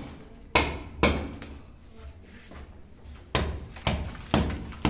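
A mason's basuli (hammer-adze) chipping at a rough concrete ceiling to knock down high spots and level it: two sharp strikes, a pause of about two seconds, then four more strikes at about two a second.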